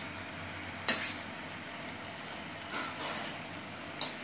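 Sugar syrup simmering in a pan with lumps of ghee melting in it: a steady low hiss, with a sharp click about a second in and another near the end.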